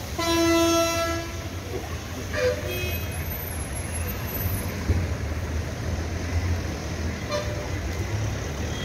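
A vehicle horn honks for about a second at the start. Shorter toots follow about two and a half seconds and seven seconds in, over a steady low rumble of traffic.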